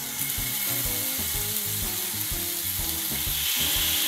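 Yogurt-marinated chicken skewers sizzling in hot oil in a nonstick frying pan. The sizzle starts suddenly as the first skewer goes in and grows louder about three seconds in, as a second skewer is laid beside it.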